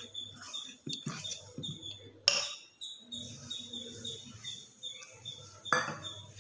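Steel spoon stirring and scraping a thick flour dough in a steel mixing bowl, with sharp metal clinks against the bowl, the loudest about two seconds in and another near the end.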